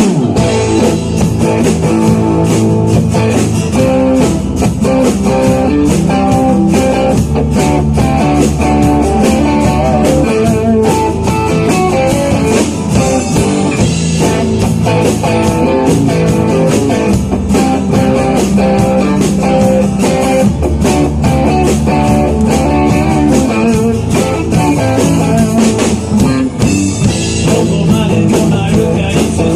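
Rock band playing live on guitar, bass and drum kit: a full, loud, steady-tempo blues-rock groove.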